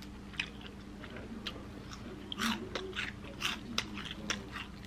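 Someone eating fried chicken close to the microphone: chewing and mouth smacks with scattered crunchy crackles of the fried coating, busiest around the middle.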